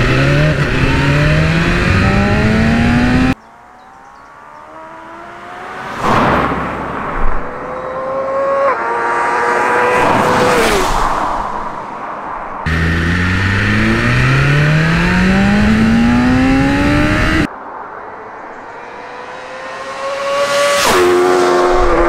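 2023 BMW S1000RR's inline-four on its standard exhaust under hard acceleration, the engine note climbing steadily in pitch. This alternates with roadside passes where the bike rises as it approaches and drops in pitch as it goes by, twice. The stock exhaust is a hairdryer-like note.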